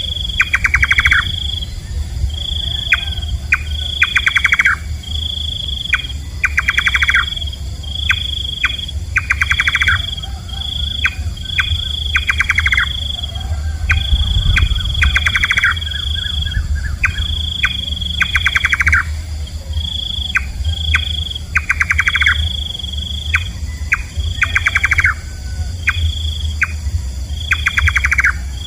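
Nightjar calling: short high notes repeated about once a second, mixed with fast rattling runs of notes, over a steady low rumble.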